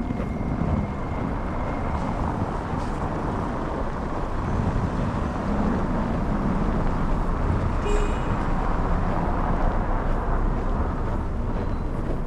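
Downtown street traffic with wind buffeting the microphone, a steady rushing rumble. There is a brief high-pitched squeal about eight seconds in.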